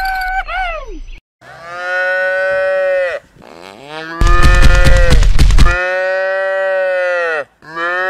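Cow mooing: two long, even moos with a louder, rough pulsing call between them. A short high gliding squeak comes just before the first moo.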